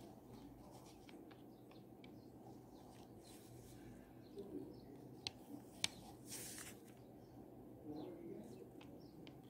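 Faint scratching of a ballpoint pen drawing on notebook paper, with two light clicks a little past five seconds in and a short, louder scratch just after.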